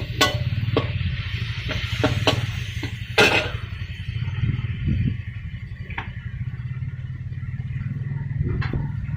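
A metal spatula clanking and scraping against a wok as food is stir-fried, with sizzling that dies away about three and a half seconds in. A few lone knocks follow over a steady low rumble.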